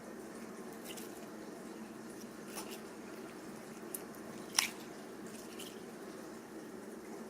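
Slime being squished by hand, giving a few small wet pops and clicks, the loudest about four and a half seconds in, over a steady low hum.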